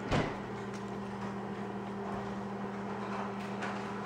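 A steady low mechanical hum with a few fixed tones, with one short soft thump just after the start and faint light rustling.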